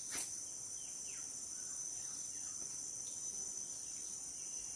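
Steady high-pitched chorus of insects trilling at dusk, with one short sharp click just after the start.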